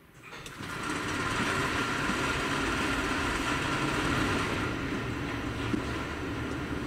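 Automated parking garage machinery starting up about half a second in and running steadily as it moves a parked car on its pallet: a steady motor tone over a mechanical rumble.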